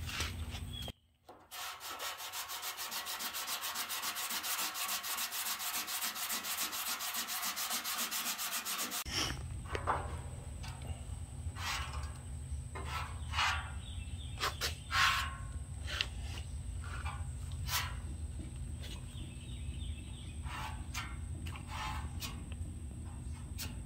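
Hand sanding body filler on a steel dash panel with a foam sanding sponge. It starts as fast, even back-and-forth scrubbing strokes for several seconds. Then come slower, irregular strokes with pauses, over a low steady hum.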